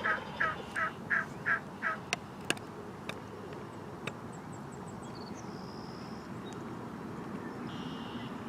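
A rapid series of about seven turkey yelps in the first two seconds. A few sharp clicks follow, then faint high songbird notes.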